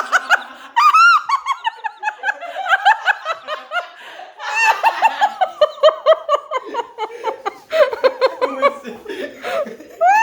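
Several people laughing hard together, overlapping high-pitched peals of laughter in quick repeated bursts.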